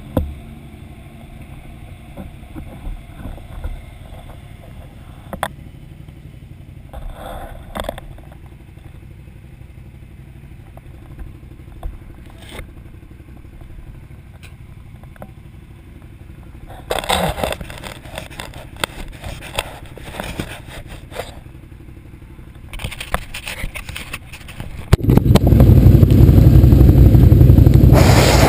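Can-Am Outlander XMR 1000R ATV's V-twin engine running low and steady, with scattered scrapes and knocks close to the microphone, heaviest between about 17 and 22 seconds in. About 25 seconds in, the engine comes up suddenly to a loud, steady run.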